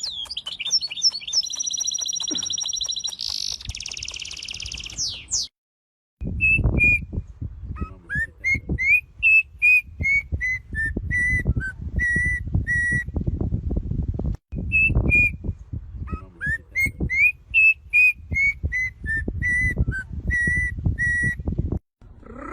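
Bird song: rapid high trills for the first few seconds, then after a brief break a phrase of about a dozen clear whistled notes, some rising, sung twice almost identically. A low rumbling noise runs under the whistled phrases.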